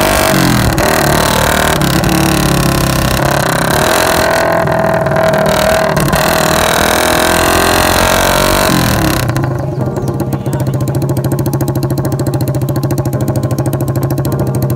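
Suzuki Raider 150 Fi single-cylinder engine through an open exhaust with a Vmax elbow, running hard at high revs with its pitch rising and falling. About nine seconds in the revs drop and it settles into a steady low pulsing.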